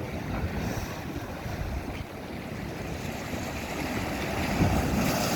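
Wind rumbling on the microphone over the sea, with water washing and splashing; it grows louder near the end.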